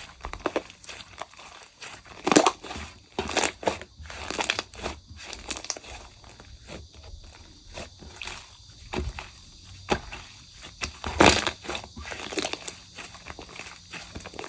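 Slime being squeezed and pressed by hand, giving irregular sticky clicks and pops, loudest about two seconds in and again about eleven seconds in.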